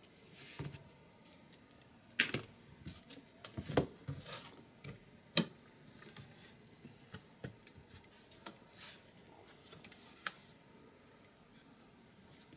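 Irregular clicks, taps and light knocks of small tools and parts handled on a workbench: a screwdriver, a homemade DB25 serial connector on ribbon cable, and the Poqet PC's plastic case. The sharpest knocks come about two, four and five and a half seconds in.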